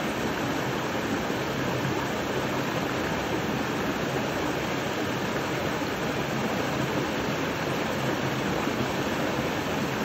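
Small waterfalls pouring over rock into a shallow pool, a steady, even rush of falling and splashing water.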